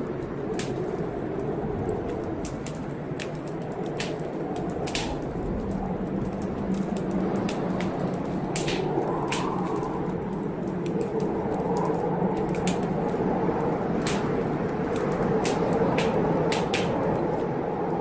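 Wood fire crackling, with sharp irregular pops scattered throughout, over the steady low rushing of a rainstorm.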